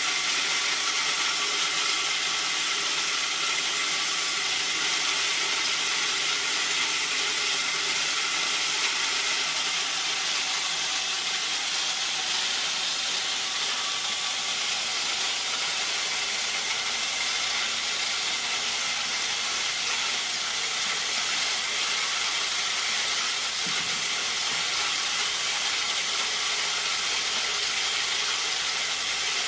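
A180 corn mill with 18 cm grinding discs, driven by a 2.2 kW (3 HP) electric motor, running at full output and cracking dried corn kernels. It makes a steady, even grinding noise, mostly high-pitched, with no let-up.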